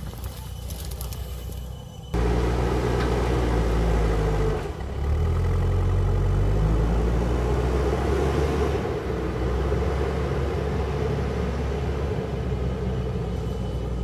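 JCB backhoe loader's diesel engine running with a steady low drone, which gets clearly louder about two seconds in.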